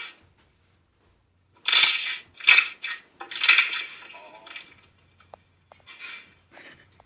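Slime being squeezed and pressed, giving crunchy, crackling bursts: a long run of crackles for about three seconds, then a shorter one near the end.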